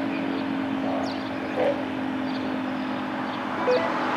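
Federal 3T22A three-phase outdoor warning siren, its 10-port air intake blocked, coasting down after its alert: a low, steady hum that fades slightly near the end. A few short chirps are heard over it.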